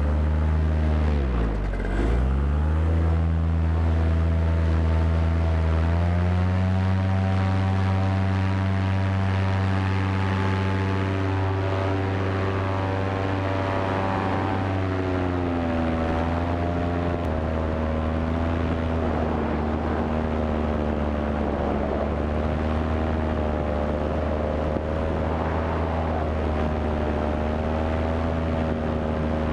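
Paramotor engine and propeller running under power. The engine note dips and comes back up about a second in, then climbs to a higher steady pitch around six seconds in and settles to another steady note around fifteen seconds, as the throttle is changed.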